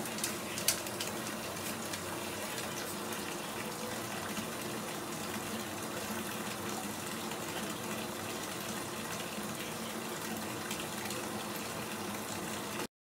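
Bathtub tap running steadily, filling the tub with water. A couple of small clicks come in the first second, and the water sound stops abruptly near the end.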